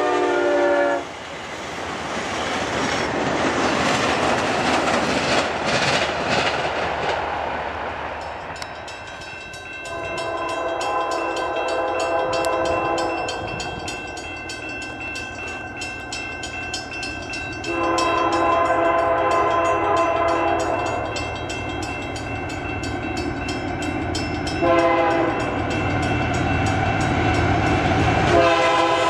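A VIA passenger train's horn cuts off about a second in and its cars roll past. From about 8 seconds, grade-crossing bells ring. A Canadian Pacific GE AC4400CW freight locomotive approaching the crossing sounds its horn in the crossing pattern: long, long, short, then a final long blast starting near the end.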